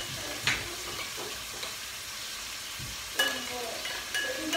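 Kitchen knife cutting potatoes on a wooden chopping board: a few sharp knocks, about half a second in and again near three seconds, over a steady hiss.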